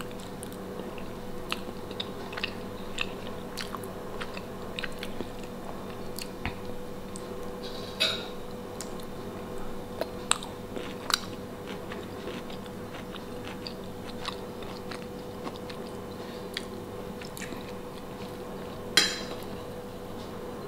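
Close-up eating sounds: a person chewing and biting pan-fried basa fish fillet, with metal cutlery clicking and scraping on a ceramic plate. The clicks are scattered, with two louder ones about 8 and 19 seconds in, over a steady faint hum.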